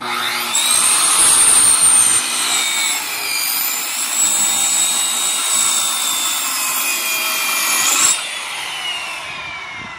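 Circular saw cutting through wooden pallet boards, a loud high whine that dips in pitch as the blade bites into the wood. Just after eight seconds the cut ends and the blade winds down with a falling whine.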